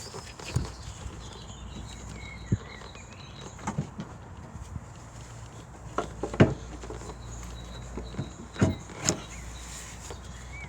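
Scattered metallic knocks and clunks, about seven at irregular intervals, as an alternator is worked and twisted to get it out past the engine bay parts of a diesel car, over a steady low hum.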